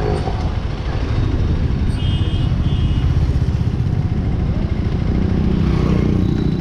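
KTM 250 Adventure's single-cylinder engine running at low revs as the motorcycle rolls slowly, a steady low rumble.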